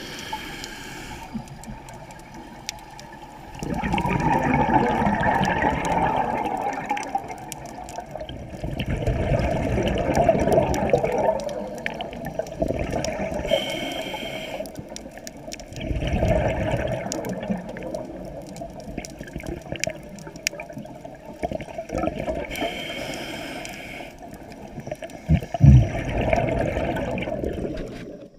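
Scuba diver's regulator breathing underwater: exhaled bubbles rush out in long surges every several seconds, with a shorter, higher hiss of the regulator on each inhale between them. A sharp knock about three seconds before the end.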